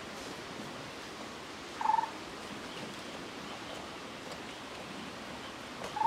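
A short, clear animal call, about two seconds in and again at the very end, over a steady outdoor hiss.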